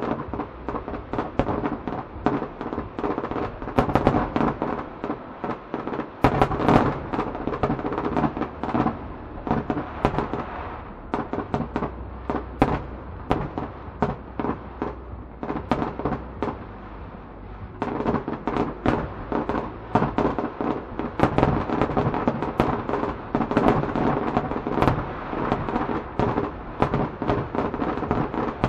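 Fireworks display: a dense, rapid barrage of aerial shell bursts, bangs and crackle, easing off for about six seconds near the middle to a low rumble, then building back into a dense barrage.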